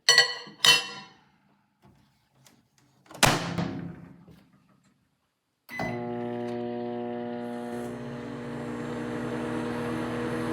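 Two short metallic clinks, then a loud thud about three seconds in, then a microwave oven switching on and running with a steady hum for the rest of the time.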